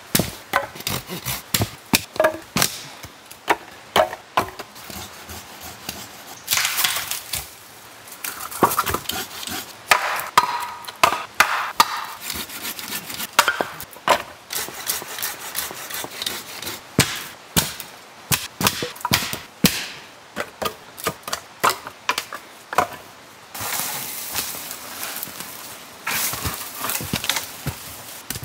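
Dry dead branches snapping, with sticks and rocks knocked down while a stone fire pit is built and firewood gathered: many sharp cracks and knocks at irregular intervals, with a few stretches of scraping and rustling.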